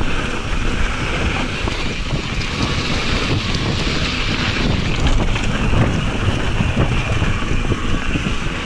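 Wind rushing over the microphone of a camera on a mountain bike descending a dirt trail at speed, with the tyres running over the dirt and the bike rattling over bumps.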